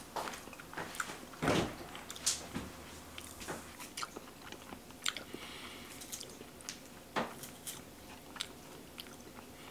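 Close-up eating sounds: biting and chewing, with scattered light clicks of chopsticks against brass dishes. One louder knock comes about a second and a half in.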